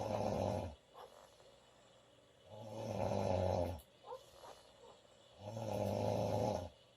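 A woman snoring loudly in her sleep: three snores about three seconds apart, each lasting over a second, with quiet breathing gaps between them.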